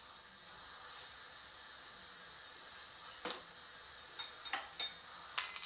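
Kitchen tap running steadily into a sink, a smooth hiss of water, with a few light clinks of dishes being handled in the second half.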